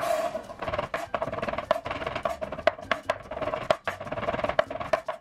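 Chef's knife mincing mushrooms on a wooden cutting board: quick, even knocks of the blade against the board, about three a second.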